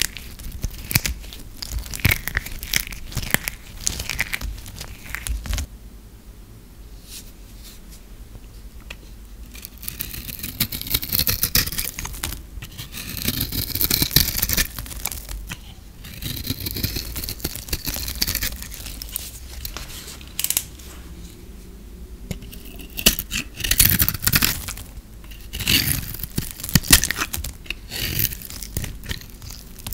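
Dry, hardened bar soap crackling and snapping as it is crushed in the hand. From about a third of the way in, a knife blade shaves the dry soap in repeated scraping strokes, flaking it off.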